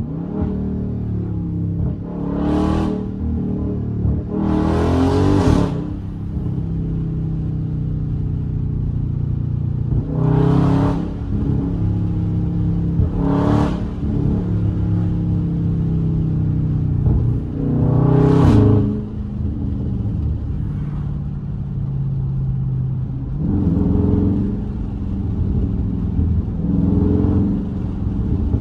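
Dodge Charger Scat Pack's 392 (6.4-litre) Hemi V8 with a JLT cold-air intake, heard from inside while driving. It runs steadily, with about seven short bursts of hard throttle, each a second or so long.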